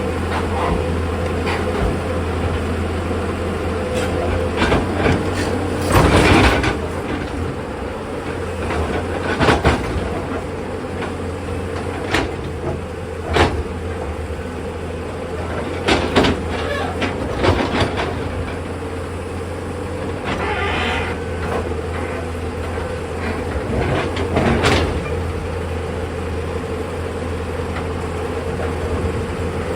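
Tata Hitachi hydraulic excavator's diesel engine running steadily under load, with seven sharp knocks and clatters of bucket, rock and steel scattered through it.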